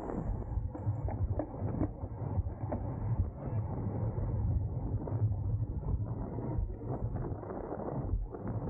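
Wind rushing over the microphone and road noise from a road bicycle racing in a criterium pack, with scattered short clicks and rattles.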